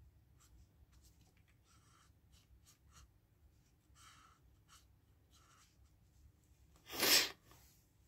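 Felt-tip marker drawing on paper: faint, short scratching strokes as lines are drawn and thickened. About seven seconds in comes one short, much louder whoosh.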